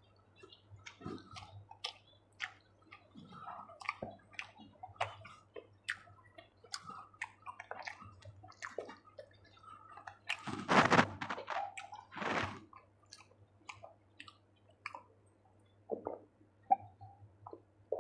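Close-miked chewing of chicken curry and rice: irregular wet smacks, clicks and squishes of the mouth. A little past the middle come two louder, longer rushes of noise.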